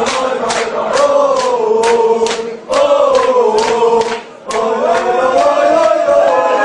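Large crowd of football supporters singing a terrace chant in unison, keeping a steady beat of about three sharp hits a second. The singing drops away briefly twice between phrases.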